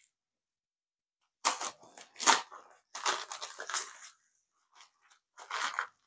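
A crumpled, torn-open white paper mailing envelope crinkling and rustling as it is handled, in about three short bursts starting about a second and a half in.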